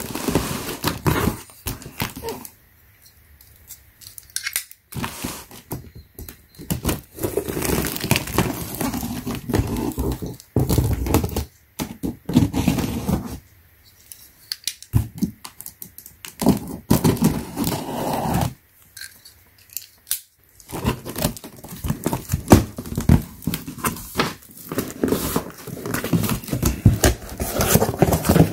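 Packing tape on a cardboard box being slit and torn open, then the cardboard flaps being pulled back and packing paper rustling and crinkling. The scratching and tearing comes in spells with a few short pauses between them.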